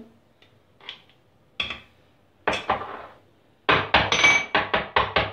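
A metal spoon clinking against a glass jar as thick pepper paste is spooned in, a few separate clicks, then a quick run of sharp knocks and clinks of the glass jar, about five a second, with a brief glassy ring.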